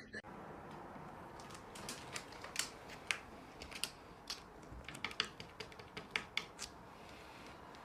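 A run of faint, irregular clicks and scratches: a cat's claws catching and scrabbling as it squeezes under a low bed.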